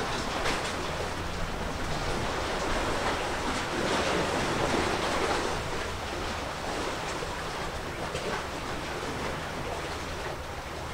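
Sea waves washing in, an even rushing that swells about four to five seconds in, over a low steady hum.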